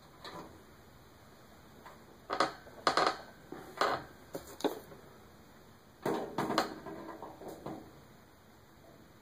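Metal side panel of a computer case being worked off and handled: a series of irregular clanks and rattles, clustered about two to five seconds in and again around six to seven seconds.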